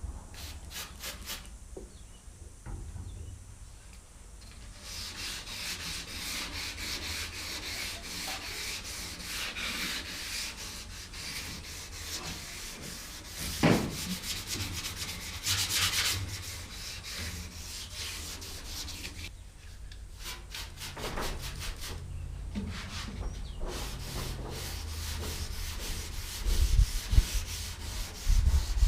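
Sandpaper rubbing back and forth over sandable primer on the cab's sheet-metal interior, 400-grit scuffing of the primer before colour, in stop-start passes. A sharp knock about halfway through and a few more knocks near the end.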